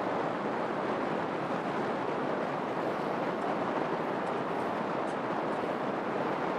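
Steady rushing noise of water and wind heard aboard a harbour sightseeing boat under way.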